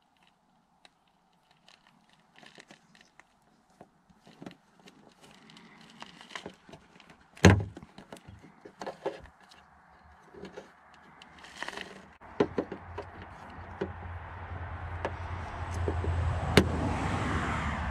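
Small clicks and scrapes of a plastic pry tool and fingers working the clip-in side indicator lamp out of a car's front wing, with a loud sharp snap about seven and a half seconds in and another sharp click near the end as the lamp is pressed. A hiss rises through the last few seconds.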